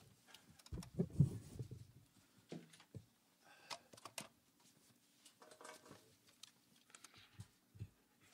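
Faint handling noises in a small room: scattered light clicks and rustles, with a low thump about a second in.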